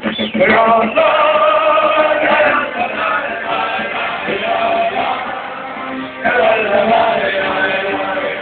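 Music with a group of voices singing along in long held notes.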